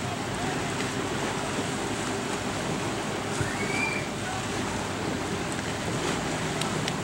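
Steady wind and water noise with the faint, even running of a passing pontoon boat's motor. A single short, high rising-and-falling call sounds about three and a half seconds in.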